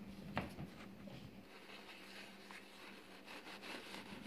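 Faint handling sounds: a light tap about half a second in, then small clicks and soft rustling near the end as a paper towel is rubbed over the glass preamp tubes. A faint low hum fades out after the first second or so.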